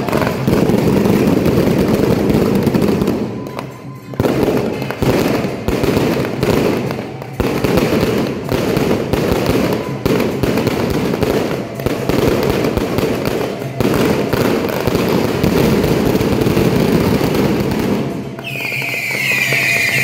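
Dense, continuous crackling and popping of a big ground display of firecrackers and fireworks, with brief lulls now and then. About eighteen seconds in, the crackle gives way to a higher, slightly falling hissing whistle as fountains of sparks shoot up.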